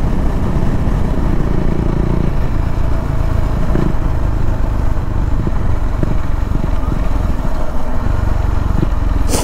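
KTM Duke 390's single-cylinder engine running steadily with wind rumble while the motorcycle slows from about 60 to 35 km/h, nearly out of fuel at the end of a one-litre mileage test. A brief sharp click comes near the end.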